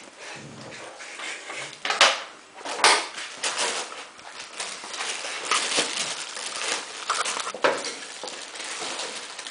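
Cardigan Welsh corgi puppies scuffling on a tiled floor: claws clicking and scraping, with rustling and a few sharp knocks, the loudest about two and three seconds in.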